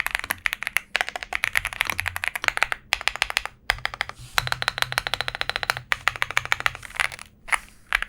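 Fast typing on a budget gasket-mounted mechanical keyboard with a polycarbonate plate, factory-lubed switches and double-shot PBT keycaps: a rapid run of keystroke clacks, broken by a few brief pauses.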